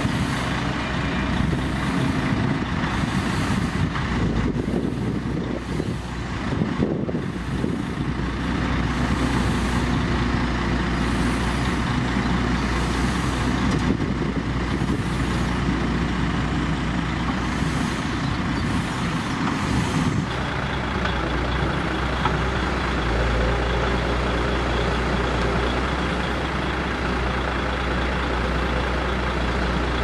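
Diesel engines of a Hyundai 170W-7A wheeled excavator and a Mercedes-Benz tipper truck running steadily while the excavator loads soil into the truck. The low engine rumble grows stronger about two-thirds of the way in.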